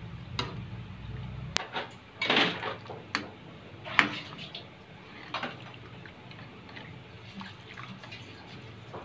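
Metal ladle stirring coconut milk in a steel wok: liquid sloshing, with sharp clinks of the ladle against the pan, the loudest about four seconds in.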